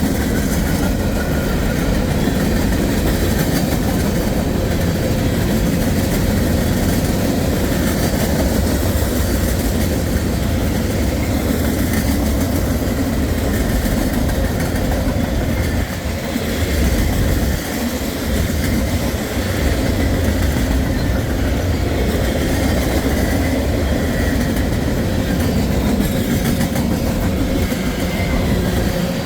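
Freight cars of a passing train rolling by: a steady rumble of steel wheels on the rails.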